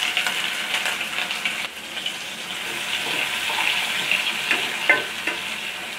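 Freshly added chopped onions sizzling steadily in hot oil in a wok, stirred with a metal spatula that makes a few light scrapes and taps against the pan.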